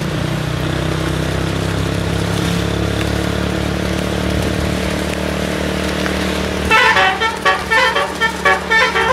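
A bus engine running with a steady low drone. About seven seconds in, a multi-trumpet telolet bus horn on the roof cuts in loudly, playing a quick tune of short, changing notes.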